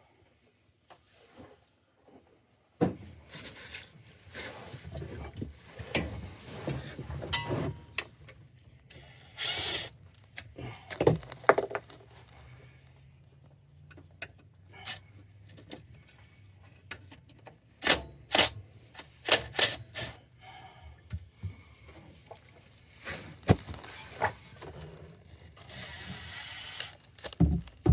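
Hand tools clinking and knocking on the transmission pan as it is worked loose, with scattered sharp clicks and a few short rushing noises.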